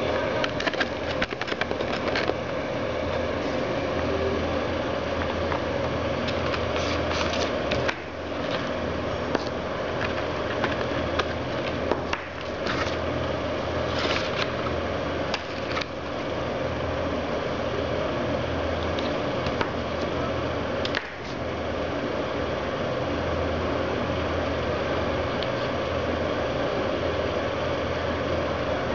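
A steady mechanical hum, with scattered clicks and light rattles of hard plastic parts being handled and fitted together.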